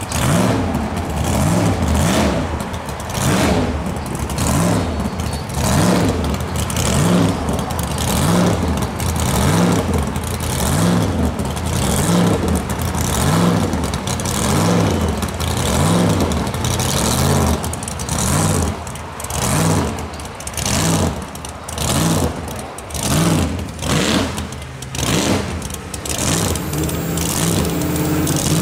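A hot rod's engine is revved again and again, its pitch rising and falling in a steady cycle about every second and a half.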